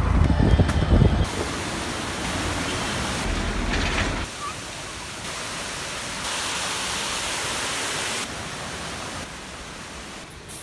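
Steady rushing noise with no clear tone, jumping in level every second or two as one short clip cuts to the next, with a heavy low rumble in the first second.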